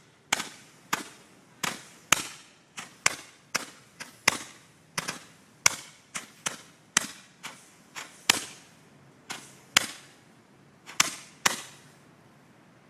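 Firecrackers going off one after another: an irregular string of sharp bangs, about two a second, each with a short ringing tail, stopping about a second before the end.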